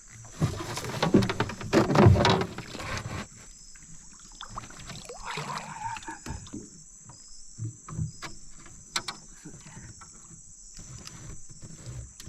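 Water splashing and knocking in and around a small boat, loudest in a burst of a few seconds near the start, followed by scattered sharp knocks.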